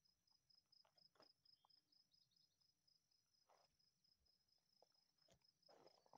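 Near silence with faint, steady high-pitched insect chirping, about five pulses a second, and a few soft rustles.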